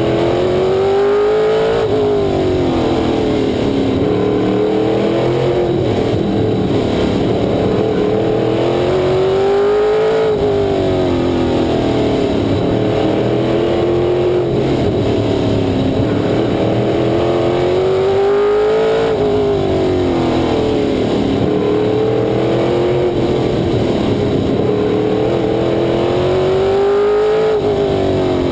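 Race car engine heard from inside the cockpit, its pitch climbing under throttle along each straight and dropping off sharply at the lift for the turn. The cycle repeats four times, about every eight to nine seconds, once per lap.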